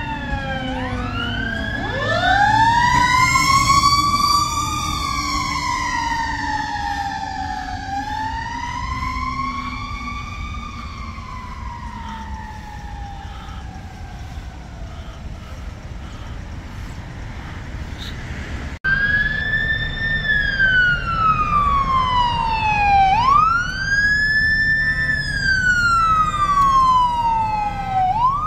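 Fire truck sirens wailing, rising and falling in pitch, several overlapping in the first part. After an abrupt cut about two-thirds through, a single siren wails in slow rise-and-fall cycles over a low rumble.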